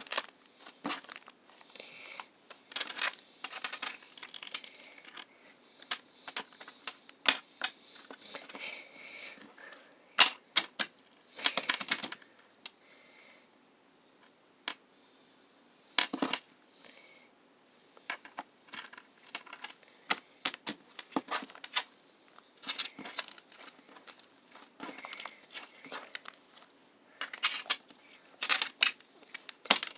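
Slime being squished and kneaded by hand, giving irregular sharp pops and clicks with short crackly bursts.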